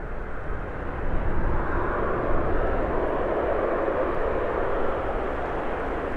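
Jet engines of a landing airliner passing by: a steady rumble that swells about a second in and eases slightly toward the end.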